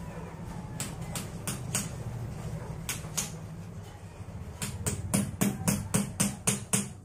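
Claw hammer tapping on a concrete floor: a few scattered strikes at first, then a quick run of about ten taps near the end, over a steady low hum.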